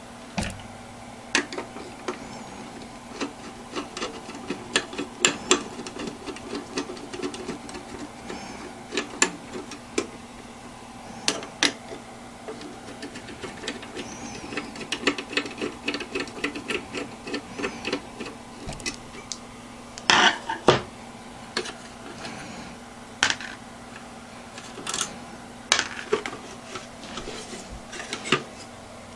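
Scattered clicks, knocks and rubbing of a desktop computer's plastic and metal parts being handled as its hard drive is removed. About halfway through there is a stretch of quick rasping ticks, and two louder knocks come close together about twenty seconds in, all over a steady low hum.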